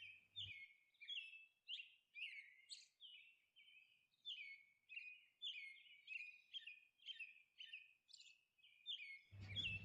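Faint bird chirping: a steady run of short, high, falling chirps, about two a second.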